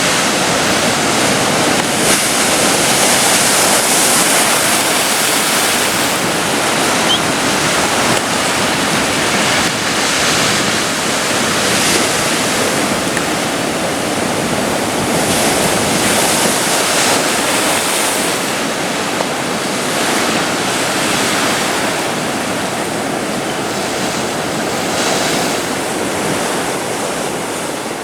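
Atlantic surf breaking and washing up a beach, a continuous rushing wash that swells and eases from wave to wave, with some wind on the microphone.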